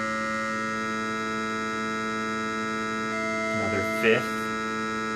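A harmonic series of computer-generated sine tones playing together as one steady buzzing hum. The fifth harmonic, turned up, stands out at first and blends back in within the first second. A little past three seconds the sixth harmonic is turned up and rises out of the blend, and a brief voice sounds about four seconds in.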